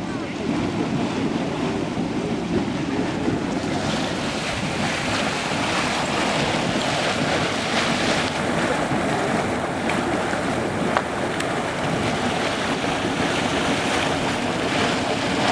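Yellowstone's Mud Volcano, a steaming, bubbling mud pool, giving a steady rushing, churning noise.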